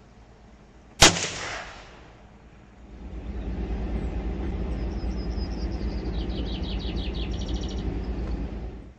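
A single rifle shot about a second in, with a short echoing tail. From about three seconds in, a steady low rumbling noise runs until just before the end.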